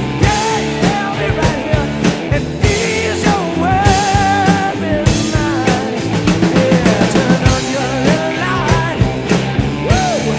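Background rock music with drums and a wavering lead melody line.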